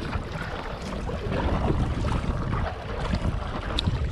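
Wind rumbling on the microphone over the wash of water around a sit-on-top kayak as it is paddled.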